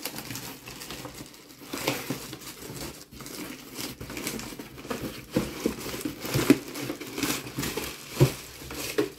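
Clear plastic packaging crinkling and cardboard box rustling as a coffee machine is handled and lifted out of its box, irregular crackles with a few sharper knocks in the second half.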